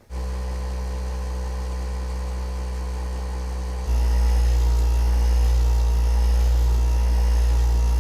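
Steady low electric motor hum that comes on suddenly and steps up louder about four seconds in.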